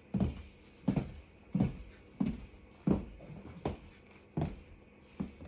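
Slow, even footsteps on a floor, about eight steps, one every three quarters of a second.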